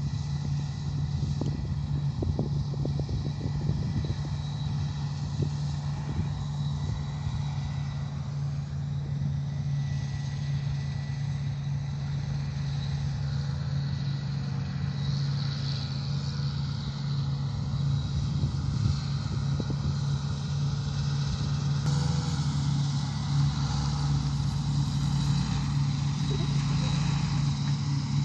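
Combine harvester and tractor engines running, a steady low drone with an uneven rumble beneath, growing a little louder near the end.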